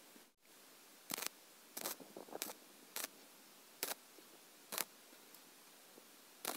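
MIG welder laying a row of short tack welds along the edge of a steel sheet: about eight brief bursts of arc noise, spaced roughly half a second to a second apart, with a longer pause before the last one near the end.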